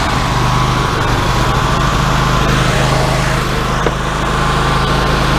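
Wood-Mizer LT40 hydraulic sawmill's gas engine running steadily, with a thin whine above it and a single click about four seconds in.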